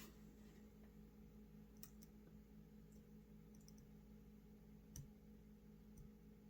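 Near silence with a faint steady hum and a few faint, sharp clicks of small tools and parts being handled: near the start, about two seconds in, and a slightly louder one about five seconds in.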